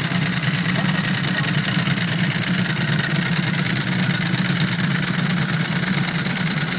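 Ducati L-twin motorcycle engine idling steadily.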